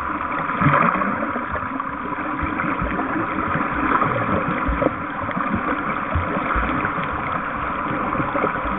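Underwater sound picked up by a submerged camera: a steady hum and rushing water noise, with scattered low thumps.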